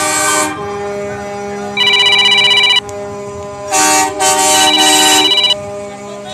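Loud electronic ringing alarm that trills rapidly in bursts of about a second, repeating every couple of seconds over a steady low hum.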